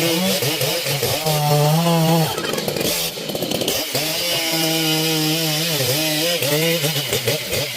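Chainsaw running at high revs while cutting wood, its pitch sagging and recovering as the chain bites and loads the engine, with a brief drop near the middle.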